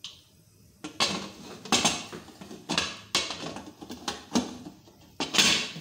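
Metal pressure cooker lid being set on the pot and twisted shut: irregular metallic clanks and grating scrapes, starting about a second in.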